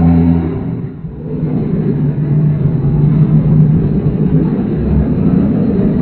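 Horror creature sound effect: a loud, low, distorted rumbling drone. A steady pitched hum in the first second gives way to a dense, rough rumble.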